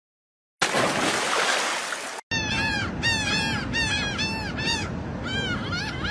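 A burst of loud noise, then a rapid run of short, high-pitched animal calls, several a second, each rising and falling in pitch.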